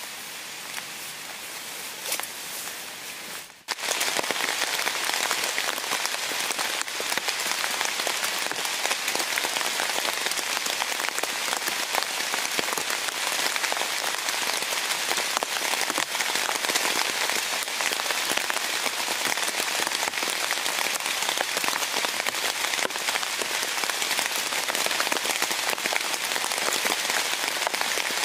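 Heavy rain falling on a tent, a dense, steady patter of drops. It is lighter for the first few seconds, then much louder from about four seconds in.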